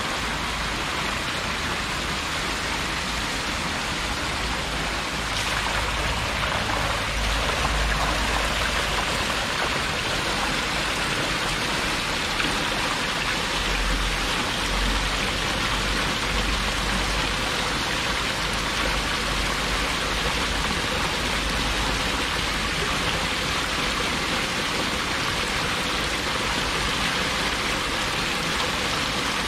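Steady splashing and churning water from a dense mass of catfish thrashing at the surface of a farm tank in a feeding frenzy, growing louder a few seconds in.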